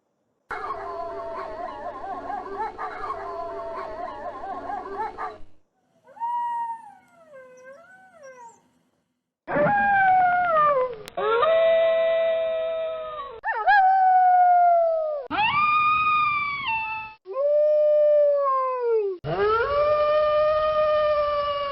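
Wolves howling: several howl together in a chorus for about five seconds, then fainter wavering howls follow, then a series of long, loud single howls, each sliding down in pitch at its end.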